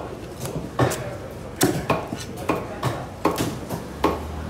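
A heavy knife chopping through a skipjack tuna onto a wooden cutting block: a series of sharp, irregular chops.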